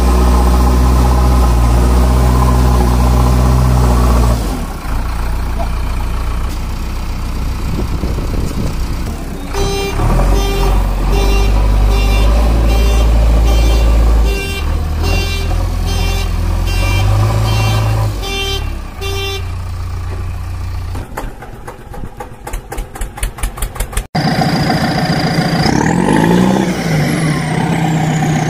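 Edited-in vehicle sound effects. A steady low engine hum plays for the first few seconds. Later come a run of evenly spaced beeps, a quick series of rapid clicks, and rising and falling whistle-like tones near the end.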